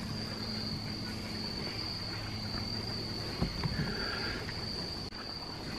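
Insects, crickets by their sound, singing in a steady unbroken high-pitched drone.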